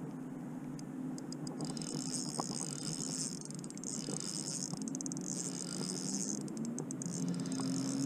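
Insects calling in a high, rapidly pulsing chorus that starts about a second and a half in and swells and fades in waves, over a steady low hum.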